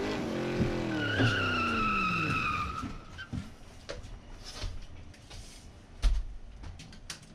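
Motor vehicle slowing down, its engine pitch falling, with a high squeal from about one second in until it cuts off near three seconds. After that come scattered light clicks and a single loud thump about six seconds in.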